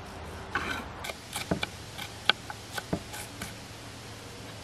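Knife chopping an onion on a wooden cutting board: about a dozen irregular knocks of the blade on the board, stopping about three and a half seconds in.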